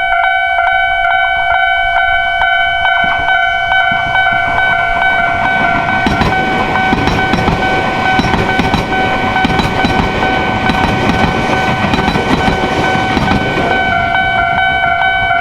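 Old-style Japanese level-crossing alarm ringing loudly in rapid, evenly spaced strokes. A train passes through the crossing, its rumble and wheel clatter building about three seconds in and dying away near the end.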